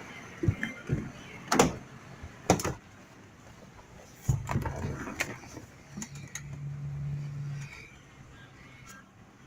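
A few separate sharp knocks, then a cluster of clunks, followed by a low steady hum lasting a couple of seconds.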